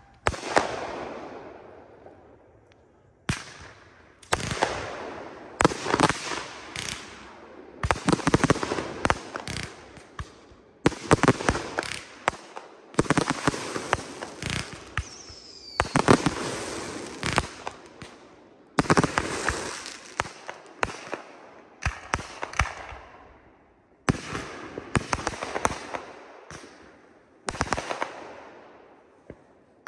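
Consumer 1.4G aerial fireworks firing a rapid string of shots: a sharp bang every second or two, each followed by a fading tail as the stars burst and die away.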